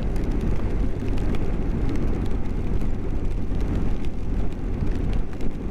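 BMW GS motorcycle riding in the rain, heard on the onboard microphone: a steady low engine drone and wind rush, with faint ticks scattered throughout.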